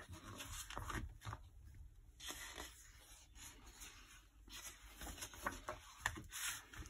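Pages of a large picture book being turned and smoothed flat by hand: faint paper rustling and swishing swipes, several times over.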